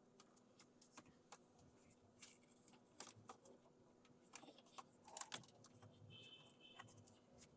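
Faint scattered clicks and rattles of plastic and metal as a Tata Tiago's engine control module is unplugged and taken out by hand, with a brief faint beep about six seconds in.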